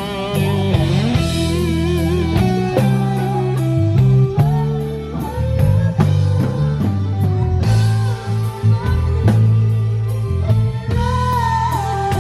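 Live rock band playing: an electric guitar lead with bent, wavering notes over bass and a steady drum beat.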